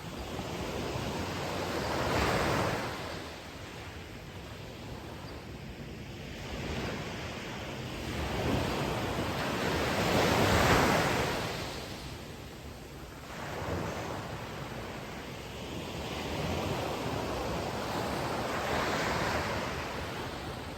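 Ocean waves breaking and washing on the shore, swelling and fading in slow surges every several seconds, the biggest about halfway through.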